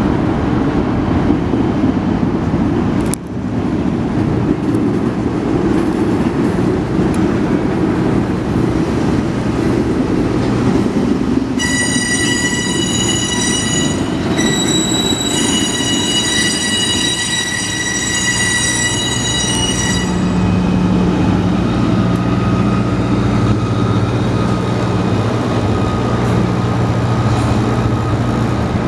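Union Pacific freight train rolling past with a continuous rumble of its cars. About twelve seconds in, a high-pitched wheel squeal sounds for roughly eight seconds, breaking off briefly partway through. After it stops, a low steady hum comes in under the rumble.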